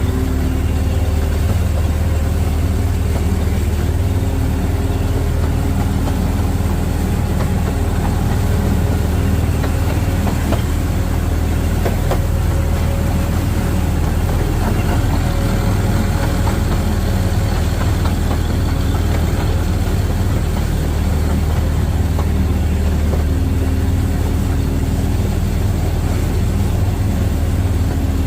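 A steady, low engine drone with a constant hum and no change in speed.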